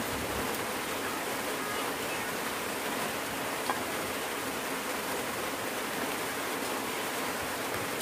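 Steady, even rushing noise with no breaks; a single faint click about three and a half seconds in.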